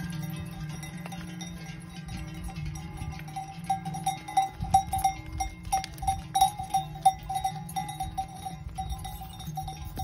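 Cowbells on walking cattle clanging in an uneven rhythm with each step, ringing much louder from about four seconds in as a belled cow comes close.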